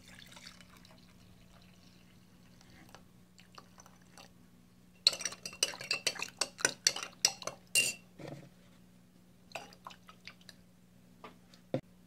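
Coffee poured briefly into a glass mason jar, then a metal spoon stirring in the jar, clinking rapidly against the glass for a few seconds midway, with a few single taps afterwards. A steady low hum runs underneath.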